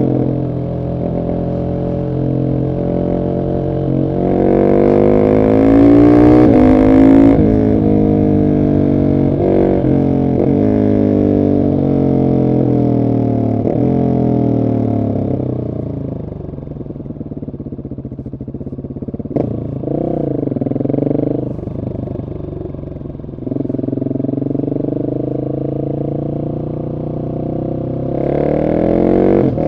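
Husqvarna 701 SM's single-cylinder engine through a decatted Arrow exhaust, accelerating hard: the revs climb and break off at each gear change, ease off through the middle, and climb again near the end.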